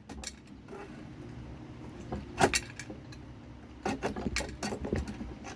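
Metal clinks and knocks of small bolts and nuts being worked loose and dropping as a manual sandbox backhoe is taken apart: scattered sharp clicks, one loud knock about halfway through and a quick run of rattling clinks near the end.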